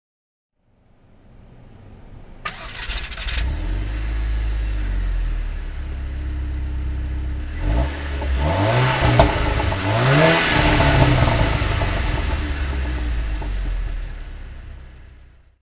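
Exhaust of a 2008 Volkswagen GLI's turbocharged 2.0 FSI four-cylinder with the resonator deleted, running at idle and then revved twice, each rev rising and falling back.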